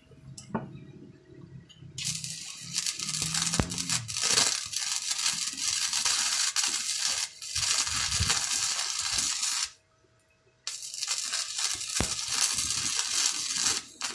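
Flux-cored MIG welding arc crackling and sizzling in two runs of several seconds each, with about a one-second stop between them.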